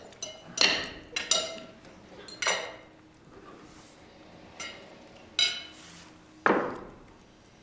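Cutlery clinking against plates and glasses at a dinner table: about eight sharp, separate clinks at irregular intervals, each with a short ring, the one near the end fuller than the rest.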